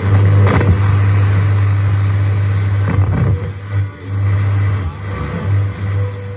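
Tivoli Model Two radio and Tivoli subwoofer playing loud as the tuning knob is turned between stations: a noisy wash over a heavy, steady deep bass that dips briefly a few times.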